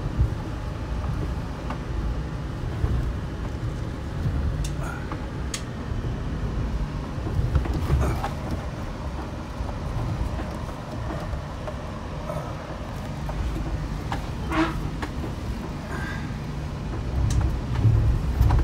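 Car's engine and tyres making a steady low rumble from inside the cabin on a rough, rocky dirt track, with scattered short knocks and rattles as the vehicle bumps over the rocks.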